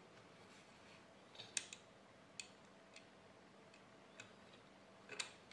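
Faint, scattered light clicks and ticks of a precision screwdriver driving a small screw into a 3D-printed plastic cover, with the plastic part handled. There are about eight sharp clicks at uneven intervals, a cluster about a second and a half in and another near the end.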